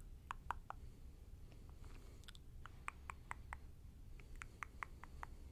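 Soft, close-up clicks in short quick runs of three to five, about five a second, over a faint steady low hum.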